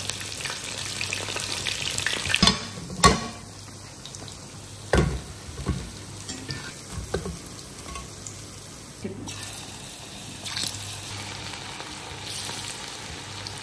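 Marinated paneer pieces deep-frying in hot oil in a cast-iron kadai, a steady sizzle, strongest at the start. A steel spoon knocks and clinks against the pan several times as the pieces are turned and lifted out, the sharpest knock about three seconds in.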